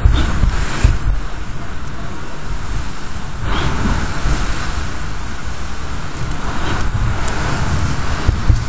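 Typhoon wind and wind-driven rain: a loud, steady hiss of heavy rain with wind buffeting the microphone, swelling in a gust about three and a half seconds in.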